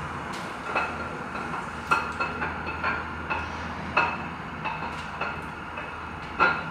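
A new camshaft being slid into the cam bearings of a 5.3L V8 block, its lobes and journals clinking against the bearings. The clinks are irregular and metallic with a short ring, loudest about two, four and six and a half seconds in, over a steady low hum.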